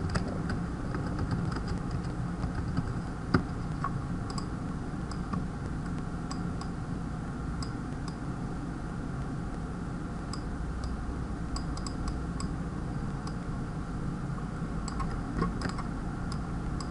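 Sparse typing and clicking on a computer keyboard and mouse, single taps and short clusters of keystrokes, over a steady low hum.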